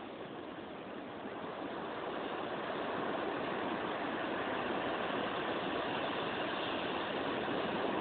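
Indian Ocean surf breaking on a beach: a steady rush of crashing waves that swells louder about two seconds in and then holds.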